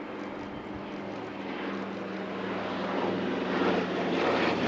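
Douglas C-47 Skytrain's twin Pratt & Whitney R-1830 radial engines droning steadily, growing louder over the last two seconds or so.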